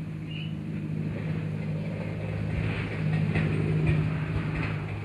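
An engine running steadily nearby, a low hum that swells a little past the middle, with light crackling of dry leaves close by in the second half.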